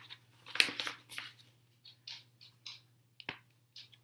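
Paper rustling and crackling in a series of short bursts, with a sharp click a little past three seconds, as a large picture book's page is handled and turned.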